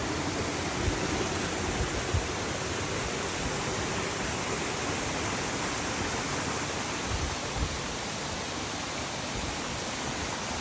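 Waterfall: a steady, even rush of falling water, with a few soft low thumps about one, two and seven seconds in.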